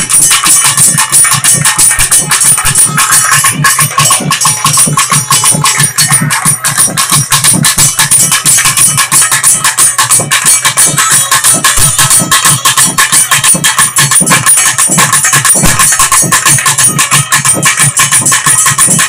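Traditional Tamil temple festival music: loud drumming in fast, even beats with a steady high metallic shimmer over it.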